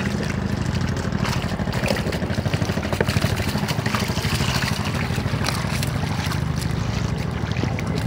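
An engine running steadily with an even, low pulse, with water splashing and light clicks over it.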